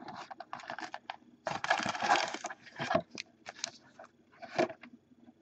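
Foil trading card packs crinkling and rustling as they are handled and restacked by hand, with a denser burst of crinkling about a second and a half in and scattered sharper ticks after it.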